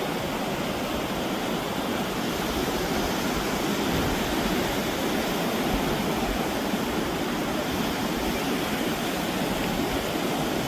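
Steady rush of ocean surf, an even wash of noise with no distinct events.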